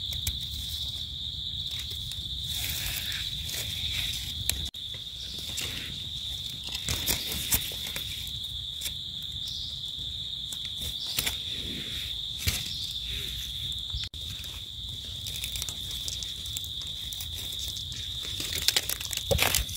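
Insects trilling steadily in one high, unbroken tone, with scattered small crackles and scrapes from dry leaf litter and a knife trimming mushroom stems.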